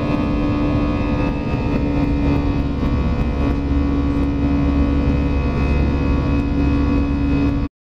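Inside the cabin of an Airbus A320 climbing after takeoff: the steady drone of the jet engines and airflow, with a strong hum and several steady tones. It cuts off suddenly near the end.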